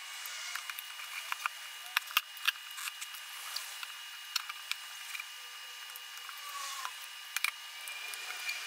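Tire iron levering the bead of a 30x10-15 ATV tire onto a 15-inch steel car rim by hand: scattered clicks and knocks of the iron against the rim, with a few short squeaks.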